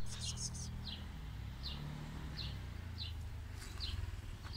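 A small bird calling: a quick cluster of high chirps at the start, then a short, high, falling chirp repeated about every three-quarters of a second. A steady low rumble runs underneath.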